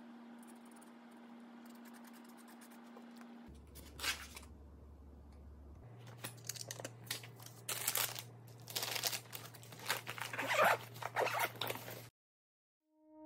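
Handling noise as a plastic lunchbox is packed into a fabric insulated lunch bag: a run of rustles, scrapes and knocks, loudest near the end, that stops abruptly. For the first few seconds only a faint steady hum is heard.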